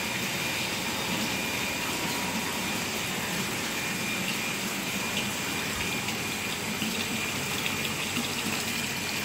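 Steady rush of water pouring and bubbling into concrete fish-rearing tanks, with a continuous high whine from the electric aeration blower running alongside.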